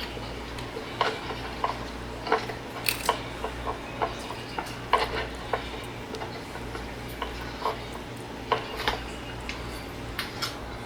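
Irregular light clicks and rubbing of a cloth being wiped over a touchscreen and its frame to clean off leftover adhesive, with a steady low hum underneath.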